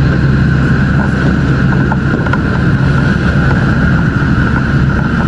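A large engine running steadily and loudly, its low drone unbroken, with a constant hiss over it and a few faint clicks.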